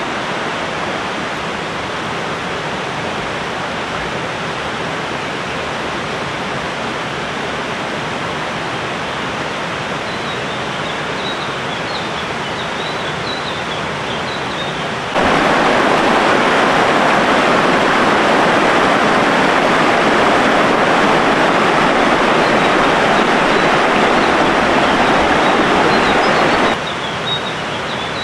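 Flowing river water rushing steadily. About halfway through it turns abruptly louder and fuller for some ten seconds, then drops back just as suddenly.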